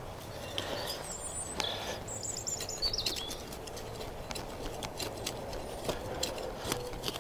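A songbird singing: a short high chirp about a second in, then a quick run of notes falling in pitch between two and three seconds in. Under it come scattered light ticks and rustles of hands working soil while planting.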